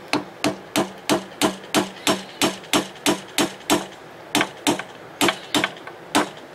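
Hammer tapping repeatedly on a tool set in a notch cut into a broken bolt stub in an outboard powerhead, trying to drive it round and out. There are about three sharp metallic strikes a second, with a short pause partway through. The bolt is not budging.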